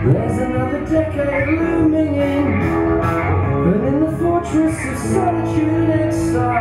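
A man singing a song live into a microphone, accompanied by a strummed electric guitar.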